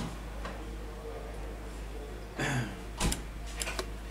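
A few light clicks and taps about three seconds in as a smartphone's glass back cover and the glue tube are handled on a rubber repair mat, over a steady low hum.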